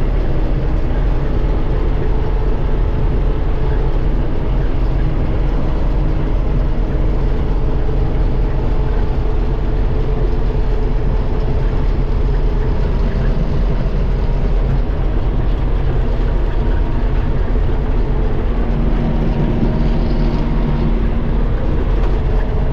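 Old John Deere 4400 combine running steadily while harvesting wheat: an even, unbroken drone of engine and threshing machinery with a few faint steady tones in it.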